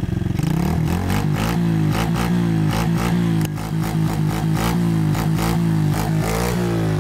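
Quad bike (ATV) engine blipped on the throttle over and over, about three quick revs a second, each rising and falling in pitch, in a rough rhythm meant to play a melody.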